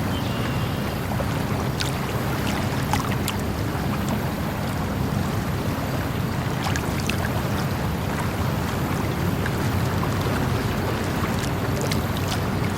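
Running water, a steady even rush with scattered small sharp ticks and splashes.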